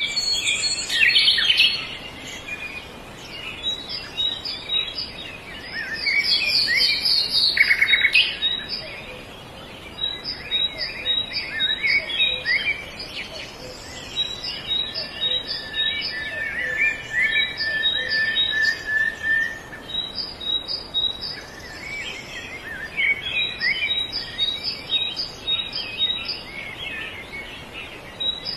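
Chorus of wild birds chirping and calling, with a high note repeated about twice a second and a steady, held tone lasting a few seconds near the middle.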